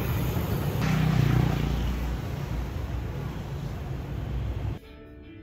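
Steady engine rumble and rushing noise of a moving vehicle. It cuts off abruptly near the end and music begins.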